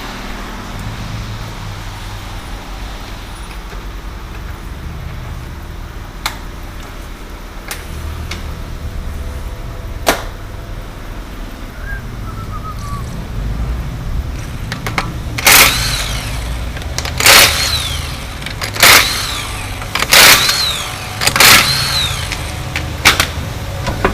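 Steady low workshop hum with a few sharp clicks, then six short loud bursts from a pneumatic air tool about a second and a half apart, each spinning up and down in pitch.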